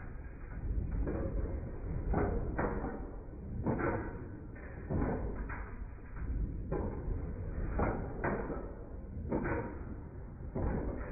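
Large old stationary gas engine running slowly: a sharp clacking knock about once a second, sometimes two close together, over a steady low rumble.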